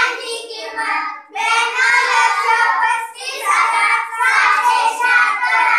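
Children singing a song together in phrases, with short breaks between them.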